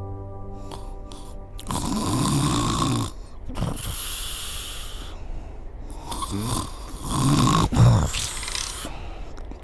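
A man asleep on his back snoring heavily: a run of long, loud snores with short gaps between them, the loudest about eight seconds in. Soft background music with held notes fades out as the snoring starts.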